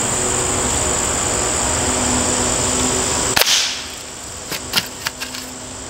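A single shot from a Hatsan Model 95 .25-calibre break-barrel spring-piston air rifle about three and a half seconds in: one sharp crack, after which a steady hiss drops away. A few light ticks follow.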